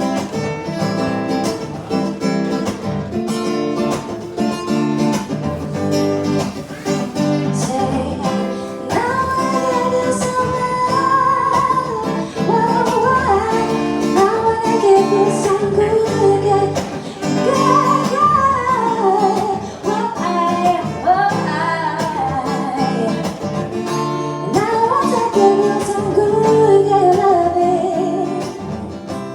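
Live music: acoustic guitar strummed in chords under a singing voice that carries a wavering melody without clear words. The song fades out near the end.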